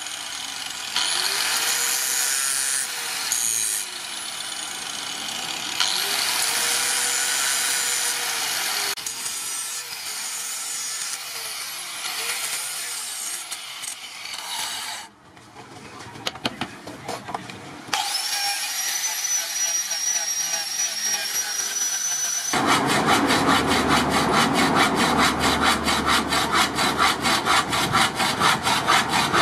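An angle grinder with an abrasive disc grinding a steel knife blade made from a bicycle disc brake rotor, in runs of a few seconds, its hum rising and falling. For the last several seconds a hacksaw cuts a block of hardwood in quick, even strokes.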